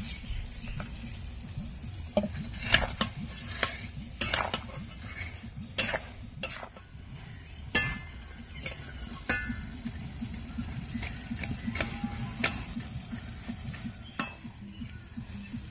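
A spoon stirring fried bundia (boondi) through thick sugar syrup in a cooking pan, knocking and scraping against the pan in irregular clinks, over a low steady rumble.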